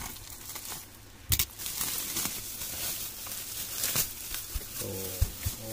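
Crinkling and rustling of a black plastic, bubble-wrapped parcel being cut open and handled, with a sharp scissor snip about a second in. A low, wavering hum starts near the end.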